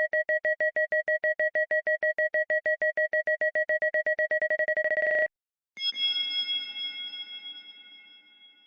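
Synthesized digital UI error sounds: a rapidly repeated two-tone electronic beep, about seven a second, that speeds up and runs together before cutting off about five seconds in. Then a single bright electronic chime rings out and fades away over about three seconds.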